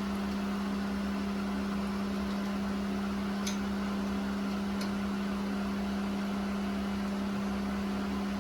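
A steady mechanical hum, like a fan or motor running, with two faint light ticks about halfway through.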